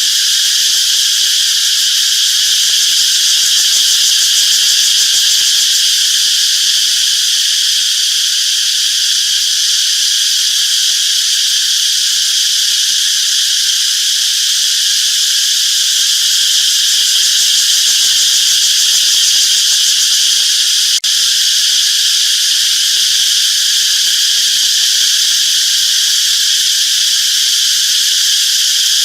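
Cicadas singing: a loud, steady, high-pitched buzzing chorus, with one brief break about three-quarters of the way through.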